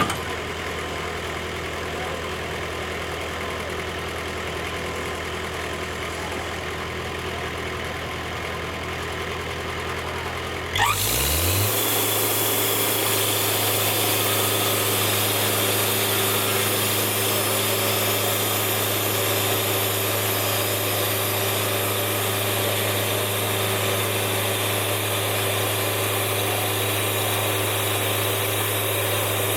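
Sawmill engine idling steadily, then about eleven seconds in revving up quickly and settling into a louder, higher-pitched steady run.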